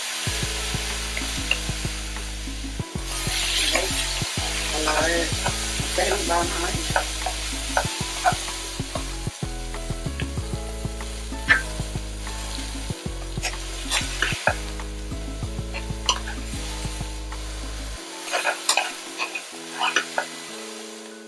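Strips of bell pepper sizzling as they are stir-fried in a hot wok, with a wooden spatula scraping and tapping against the pan. Near the end a metal spoon clinks and scrapes as the peppers are scooped out.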